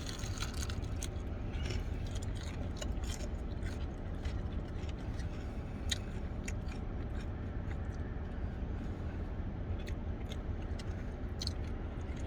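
A person biting into and chewing a crispy fried chicken wing, with scattered short crunching clicks, over a steady low rumble.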